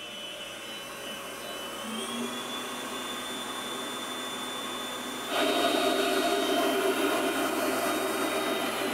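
Mondial stand mixer's motor running with its balloon whisk beating cream, a steady whine. The speed is stepped up about two seconds in and again about five seconds in, when it gets louder, as the cream is whipped to a very firm chantilly.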